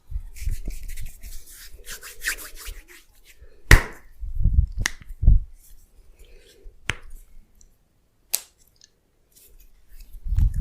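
Close-up massage sounds: hands rubbing and tapping on a body with soft low thumps, and four sharp snapping clicks spread through.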